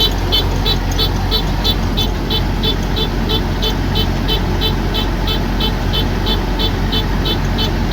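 Kubota DC108X combine harvester running steadily: a constant low engine hum and mechanical rumble, with a rapid, regular high-pitched pulsing about four times a second.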